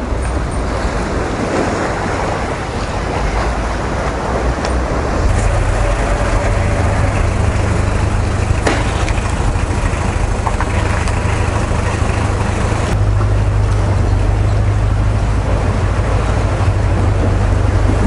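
Wind buffeting the microphone outdoors: a steady, loud low rumble with a hiss over it, strengthening twice.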